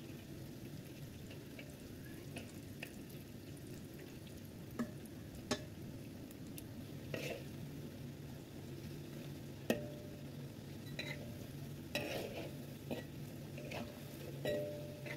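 Battered cauliflower florets deep-frying in hot oil in a wok, a steady sizzle, with a spatula stirring them and clicking against the pan several times.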